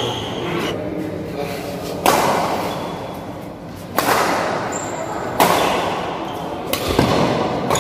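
Badminton rally: four sharp racket strikes on the shuttlecock, roughly one every one and a half seconds, each echoing in the hall.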